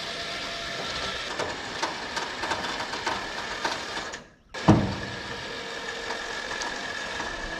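Electric winch running steadily with a thin whine, its battery nearly dead. A little past halfway a brief gap is followed by a sharp clunk with a low ring.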